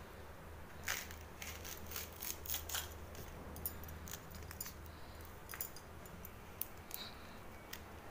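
Banana-flower florets being pulled apart and cut against an upright curved blade, heard as faint scattered crisp snips and clicks. A steady low hum runs underneath.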